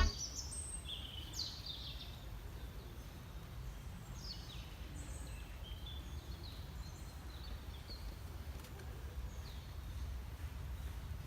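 Several birds chirping and calling in short scattered notes over a low, steady background rumble.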